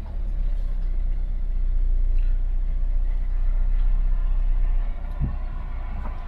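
Car driving on a winding mountain road, a steady low rumble of engine and road noise heard from inside the car. The rumble drops away about five seconds in, with a single knock.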